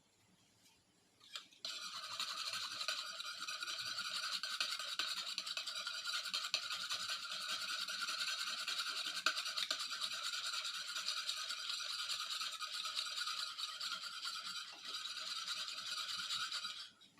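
Electric mixer running steadily; it switches on about a second and a half in and cuts off near the end.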